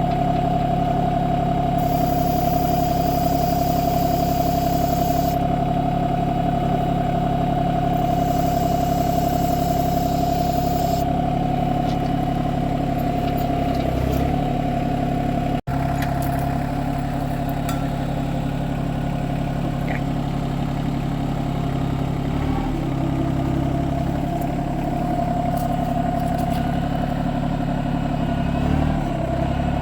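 Branson 2505h compact diesel tractor engine running steadily with a steady whine while the hydraulics are worked to line up the backhoe. A high hiss comes in twice during the first half, and the sound cuts out for an instant near the middle.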